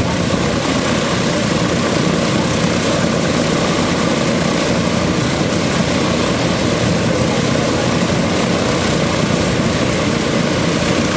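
B-17 Flying Fortress's Wright R-1820 Cyclone radial engines running steadily on the ground during the engine start-up sequence.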